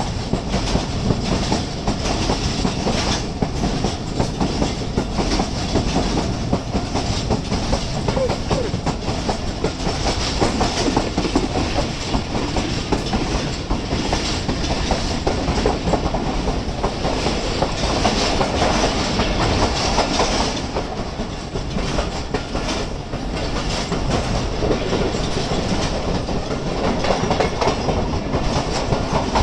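Express passenger train running through a station at speed, its wheels clattering over the rail joints in a steady clickety-clack.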